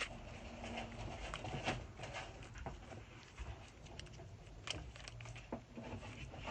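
Faint hand-working noises of air-dry clay being pressed and wrapped around a small paper ball, with scattered light taps and clicks.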